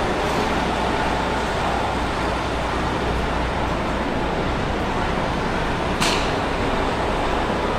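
Steady background noise of a bus terminal under a roofed concourse: a constant low rumble of vehicles and traffic. One sharp click about six seconds in.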